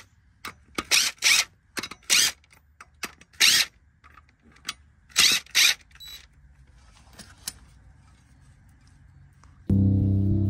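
Cordless DeWalt drill run in short trigger bursts, spinning already-loosened flywheel bolts out of the 5.3 V8's crankshaft: about eight brief bursts over the first six seconds. Background music comes in near the end.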